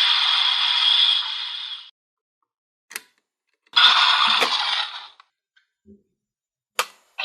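Electronic sound effects from a DX Kamen Rider Saber toy's small built-in speaker, thin and trebly with no bass, in two bursts. Near silence lies between them, with a sharp click about three seconds in and another near the end.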